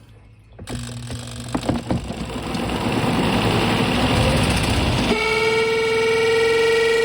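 Twin tub washing machine's spin dryer starting up: a rattling, rising mechanical noise with a few clicks, then about five seconds in a loud, steady horn-like howl suddenly takes over as it reaches full speed. This is the horrible noise at full speed that the owner thinks may come from the bearing or shaft.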